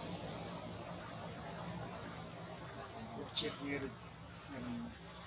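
Insects calling in the trees: a steady, unbroken high-pitched trill, with one sharp click about three and a half seconds in.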